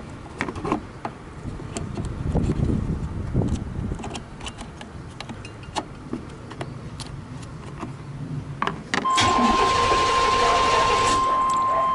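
Handling clicks and knocks, then about nine seconds in the starter of a 1997 Chevy C1500's 5.7 L V8 begins cranking the engine, which does not catch. A steady high-pitched tone sounds along with it. The engine won't fire because the fuel pump has failed and no fuel is reaching it.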